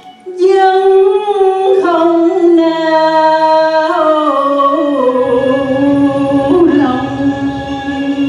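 A woman singing a long, drawn-out line into a microphone, holding sustained notes with vibrato that step gradually down in pitch, with no clear words.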